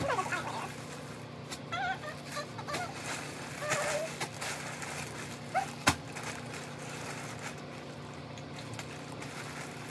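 An animal whining in a few short, high cries that bend in pitch, over a steady low hum, with one sharp click just before six seconds in.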